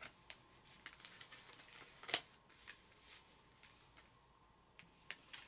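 Tarot cards being handled on a cloth-covered table: a few faint soft taps and slides, the clearest about two seconds in.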